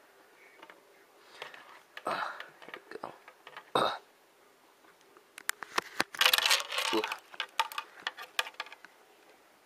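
Handling noise from a plastic hockey mask being moved and turned close to the camera: scattered knocks, clicks and rustles. There is a sharp click about four seconds in, and a dense run of clicks and scraping from about five and a half to eight and a half seconds.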